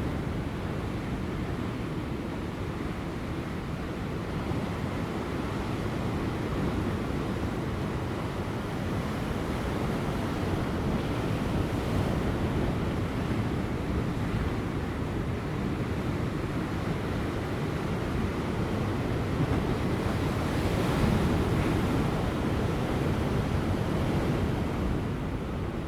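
Ocean waves breaking and washing over rocks, a continuous deep rumble of surf that swells and eases, with a stronger surge about three quarters of the way through. Light wind runs under it.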